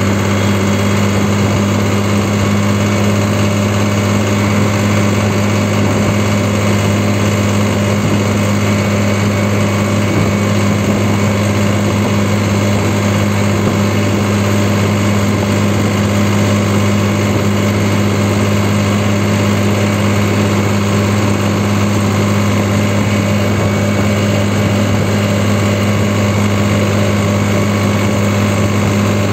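New Holland 3630 tractor's three-cylinder diesel engine running at a steady speed while the tractor drives along the road, a constant low drone heard from the driver's seat.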